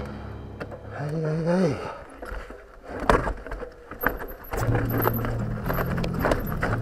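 Mountain bike rattling and knocking over roots and rocks, with a sharp knock about three seconds in. Music starts up again about four and a half seconds in.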